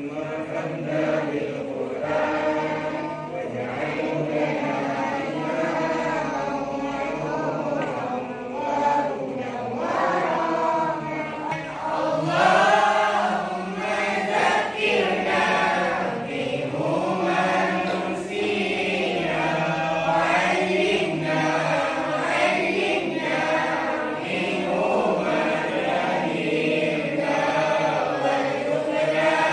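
Voices chanting a long, melodic prayer without a break.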